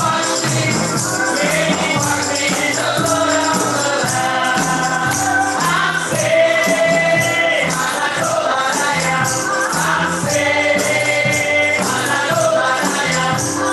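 Gospel praise music: voices singing together over a band, with a steady rattling high percussion beat.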